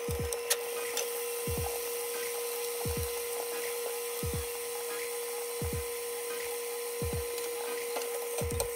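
Steaks sizzling in a frying pan over a steady whining hum, with low thumps repeating about every second and a half. Metal tongs click against the pan at the start and again near the end.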